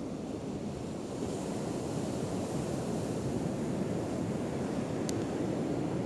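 Ocean surf breaking and washing up the beach, a steady rushing that swells a little about a second in.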